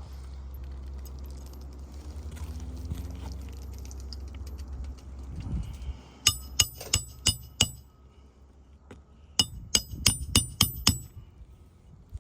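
Hammer blows with a metallic ring during asphalt shingle roof work: about five quick strikes some six seconds in, then about seven more near the end. A low steady rumble runs under the first half.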